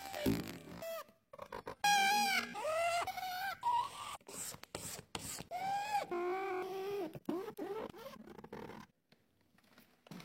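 Broad chisel-tip felt marker squeaking on paper as it is dragged in long strokes: a run of squeaks that slide up and down in pitch, with scratchy rubbing between them, dying away near the end.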